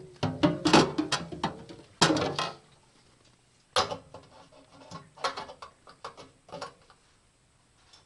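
Gear being handled and packed on a snowmobile seat: a run of knocks, clatter and rustling, busiest in the first two and a half seconds, then one sharp knock and a few lighter taps.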